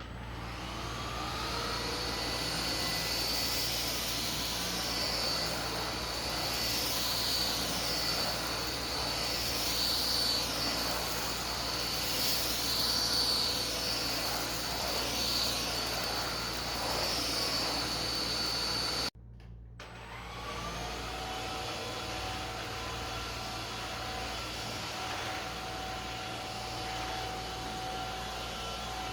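Philips SpeedPro 8043 cordless stick vacuum running steadily with a high whine over the airflow noise. About two-thirds of the way through it cuts off for an instant and comes back a little quieter, with a lower whine.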